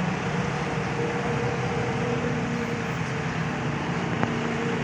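Heavy rain falling steadily, a dense even hiss, with a faint steady hum of traffic on the wet road underneath.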